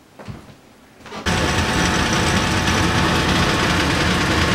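Electric vacuum pump running steadily and loudly, cutting in abruptly about a second in, pumping the air out of a vacuum jar.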